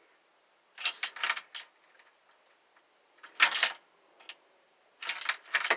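Car key turned in the ignition three times, the keyring jangling and the switch clicking each time, with no click or cranking from the starter. This is a no-crank, no-click no-start, which can come from a faulty neutral safety switch.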